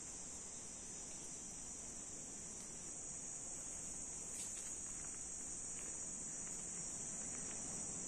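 Insects shrilling steadily in one unbroken high-pitched drone.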